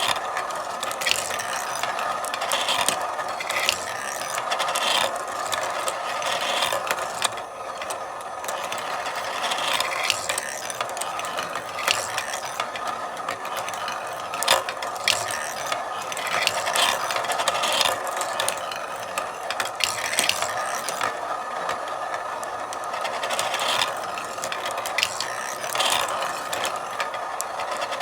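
Marbles rolling continuously along a marble run's tracks: a steady rolling rattle with frequent sharp clicks and clacks as marbles knock against the track and each other.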